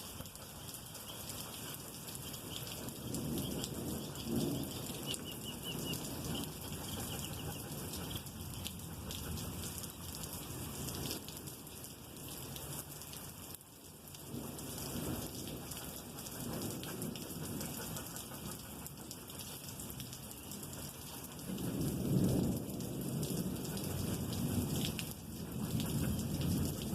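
Steady rain falling, with long rolling thunder rumbling in slow swells underneath; the rumble is heaviest in the last third.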